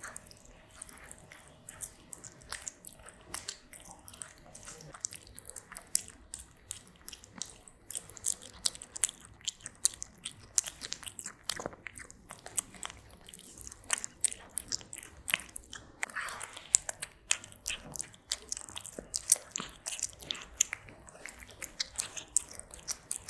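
A cat eating close to the microphone, chewing and biting its food in a quick, irregular run of crunches.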